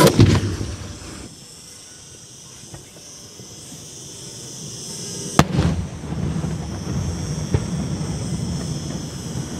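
Maltese beraq aerial shells going off: a heavy bang right at the start, then a sharp crack about five and a half seconds in followed by a rolling rumble, with a smaller crack a couple of seconds later.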